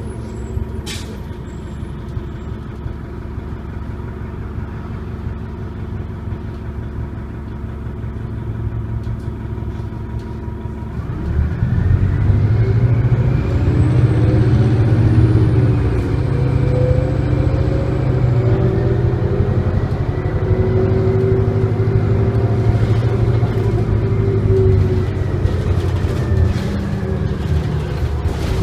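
Detroit Diesel Series 50 four-cylinder diesel of a New Flyer D40LF bus, heard from inside the cabin, running at a steady low speed, then accelerating hard about 11 seconds in. The engine note climbs and gets louder, with a whine rising over it.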